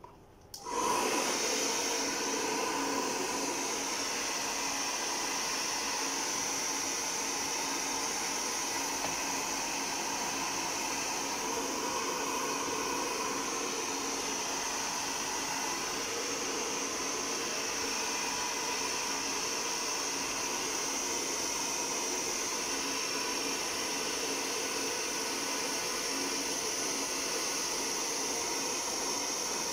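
Hand-held hair dryer switched on under a second in and then running steadily, blow-drying a dog's fur after its bath.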